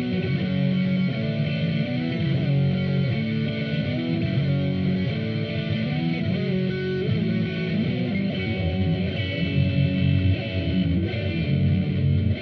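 Instrumental opening theme music led by guitar, with a steady run of changing notes.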